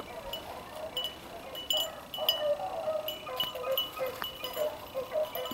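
A pack of beagles baying together while running a rabbit: many short, overlapping calls repeating throughout.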